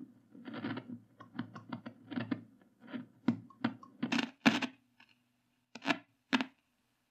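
Wega Herold K valve radio crackling and popping through its loudspeaker in a run of irregular, sharp, scratchy bursts, then two more after a short pause, as the tuning capacitor is pressed and flexed by hand. This is typical of the intermittent fault that the restorer thinks is the capacitor shorting inside.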